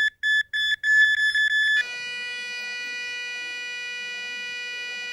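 Electronic alarm tone: a few short high beeps, then about two seconds in a steady, buzzy tone at a slightly different pitch.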